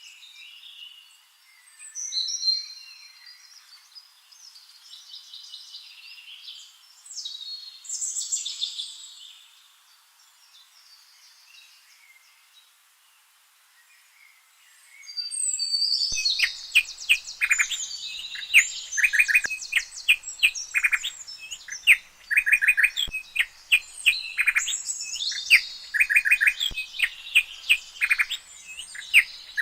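Birdsong: faint high chirping for the first half, then, about halfway in, a nightingale begins singing loudly in quick bursts of rapidly repeated notes and trilled phrases.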